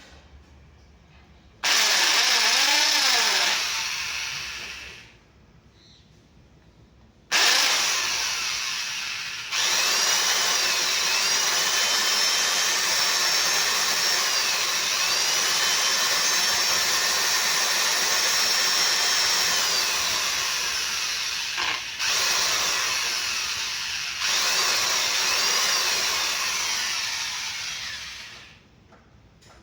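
Handheld electric power tool running in two spells: a short run that winds down after about three seconds, then a long run of about twenty seconds. Its motor whine rises and falls as the load changes, dips briefly a few times, and winds down near the end.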